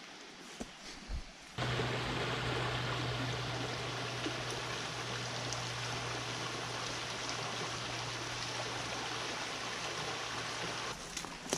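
Shallow rocky forest stream babbling over stones in a small riffle: a steady rush of running water that cuts in suddenly about a second and a half in and drops away just before the end.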